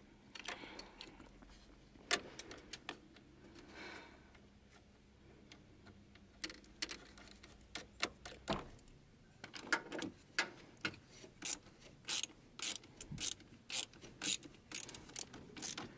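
Ratchet wrench clicking as a battery cable terminal is tightened: a few scattered clicks at first, then a quick run of ratchet strokes in the second half.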